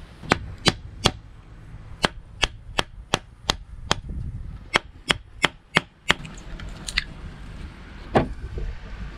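Wooden baton striking the spine of a large knife set into a birch log section, batoning it to split it: a quick series of sharp knocks, three in the first second, then about a dozen more at roughly three a second, and one last knock near the end.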